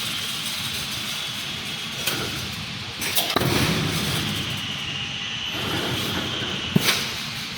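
Fence panel mesh welding machine running, a steady noise with a high whine, broken by sharp metallic clanks about two and three seconds in and a louder one near the end.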